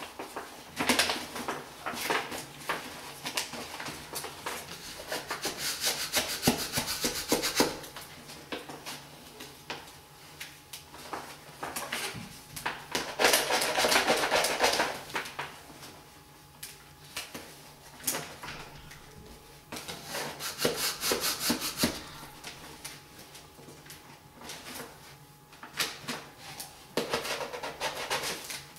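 Paper backing and vinyl of a wall decal being handled, peeled and rubbed onto the wall by hand: crinkling and rustling in several bursts, with light rubbing and taps between them.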